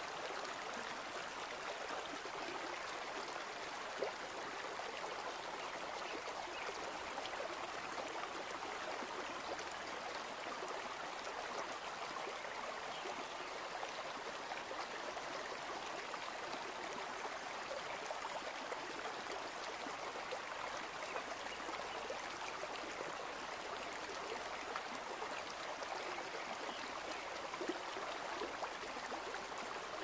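Shallow forest stream running steadily over rocks and boulders, with a single faint click about four seconds in.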